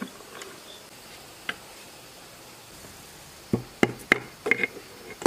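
A wooden-handled tool knocking against a part on a small engine's metal housing: a faint click, then about five sharp knocks in quick succession near the end.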